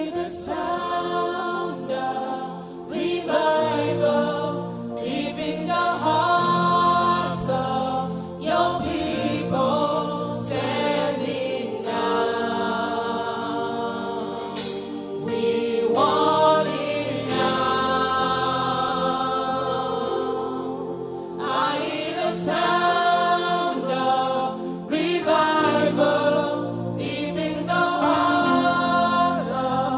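Gospel choir singing a slow worship song with instrumental backing, long held notes.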